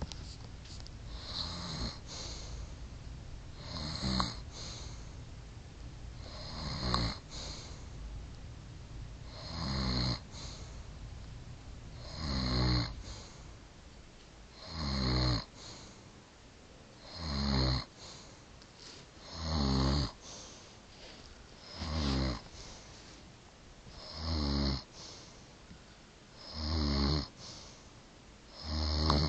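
An elderly woman snoring in her sleep, one snore about every two and a half seconds. The snores grow louder after the first few.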